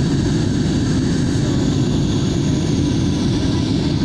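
Jet airliner in flight, heard inside the cabin: steady, low engine and airflow noise.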